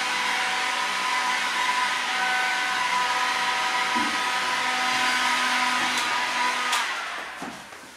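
Hot-air heat gun blowing steadily, its fan motor whining under a rush of air, warming a cold paint surface. It is switched off near the end with a click and runs down.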